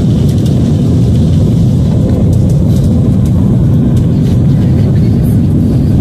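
Jet airliner's engines and rolling noise heard from inside the cabin, a loud, steady low rumble as the plane moves along the runway.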